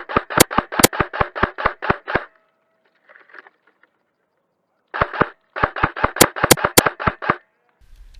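Airsoft gun firing two strings of rapid shots, about five a second, the second string starting about five seconds in, with a few louder sharp cracks among them.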